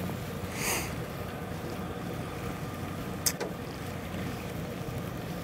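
Boat engine idling with a steady low hum. A short hiss comes less than a second in, and a single sharp click about three seconds in.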